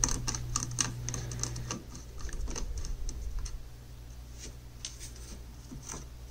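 Quick small clicks and ticks from a precision screwdriver turning a tiny screw out of a laptop's wireless card and from fingers handling the motherboard parts, dense for about the first three seconds, then sparser.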